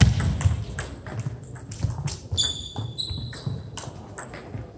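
Table tennis balls clicking irregularly off tables and bats, with low thuds. A brief high squeak comes about halfway through.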